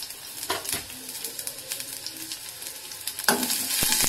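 Chopped onion sizzling in a little oil in a stainless steel kadai. About three seconds in it gets louder as a perforated metal ladle starts stirring, with scrapes and knocks against the pan.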